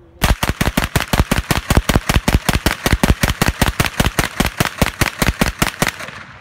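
MP5 submachine gun firing ZOL 9mm rounds in rapid fire, a string of about thirty evenly spaced shots at about five a second that stops about six seconds in. The string runs through without a stoppage, with no failure to feed or eject.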